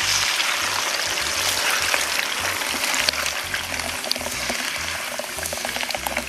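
Blended red chile sauce poured in a thick stream into hot lard in a clay cazuela, hissing and crackling as it hits the fat to fry into mole. It starts abruptly and eases off slowly as the sauce goes in.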